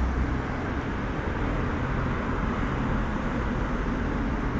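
Steady vehicle engine and road noise: a low rumble with a hiss over it.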